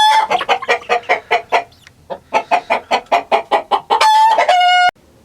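Chickens clucking in a fast run of short clucks, then a loud, drawn-out squawk near the end that cuts off abruptly.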